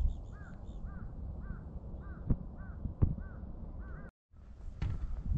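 A bird calling repeatedly in a run of short arched calls, about two a second, which stops a little before the end, over a low wind rumble with a few thuds. A few quick high chirps at the very start.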